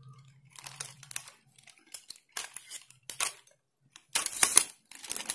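Leg-lock clips of an Xbolt 3120 tripod being snapped open one after another with the legs handled: scattered sharp clicks, with a denser, louder clatter about four seconds in.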